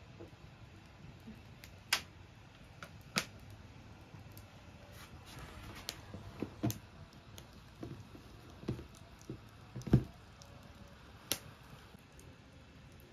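Kitchen handling sounds: scattered sharp clicks and knocks of cookware and utensils being set down and moved, with one heavier knock about ten seconds in, all in a small room.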